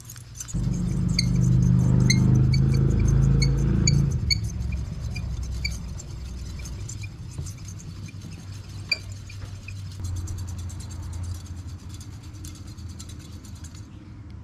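Spinning reel cranked steadily to wind new line onto its spool from a line winder: a whirring gear hum that starts about half a second in, is loudest for the first few seconds, then eases and runs on, with a light tick two or three times a second.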